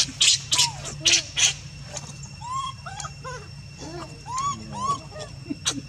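Baby monkey crying in short, arched, high-pitched calls, one after another, several a second from about two seconds in. Sharp clicks, the loudest sounds, come in the first second and a half.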